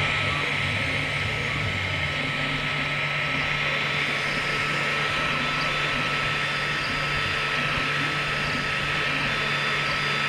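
XVICO X3S 3D printer running a print: a steady mechanical whir with constant humming tones and no change in pace.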